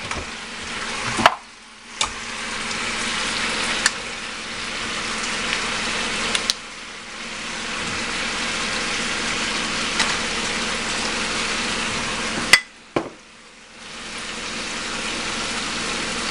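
Ginger, garlic and soy sauce sizzling steadily in a hot pan as it cooks down, with a few sharp clicks. The sizzle dips briefly three times, near the start, in the middle, and near the end.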